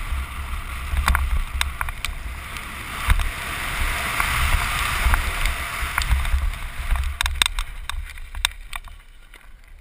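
Downhill mountain bike ridden fast, heard from a helmet-mounted camera: wind buffeting the microphone in a low rumble, tyre noise over dirt and gravel, and sharp rattles and clacks from the bike over bumps. The noise eases in the last couple of seconds as the bike slows.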